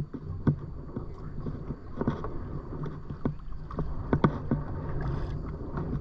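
Kayak being paddled, with water noise from the strokes and irregular sharp knocks about once or twice a second.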